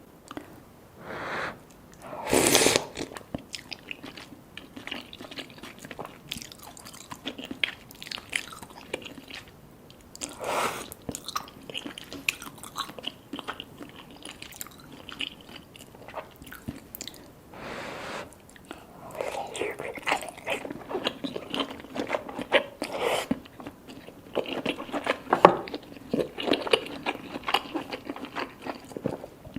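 Close-miked eating: bites and chewing of cheesy rice cakes and fish balls, with wet mouth smacks. A few louder bites stand out, the loudest about two and a half seconds in, and the chewing turns into dense, quick smacking over the last ten seconds.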